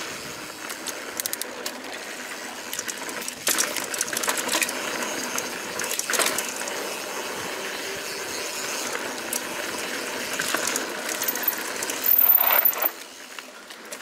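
Santa Cruz 5010 mountain bike rattling and clicking as it rolls over dirt singletrack, with a louder clatter about twelve seconds in, after which it goes quieter.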